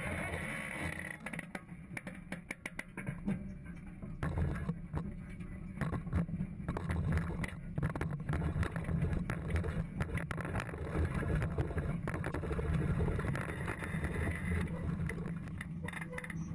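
Flexi-coil 5000 air drill's shank openers with Agmaster seed boots working through stubble: a steady low rumble with frequent knocks and rattles.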